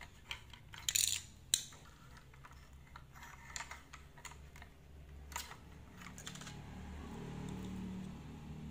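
Plastic LEGO bricks clicking and clattering as they are handled: a string of irregular sharp clicks, the loudest about a second in.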